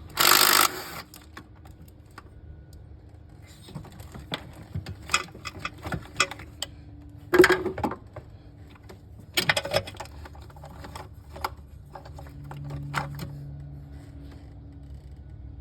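Hand tools working on a car engine: irregular metallic clicks and clatter, with louder rattling bursts at the start, about halfway through and a couple of seconds later.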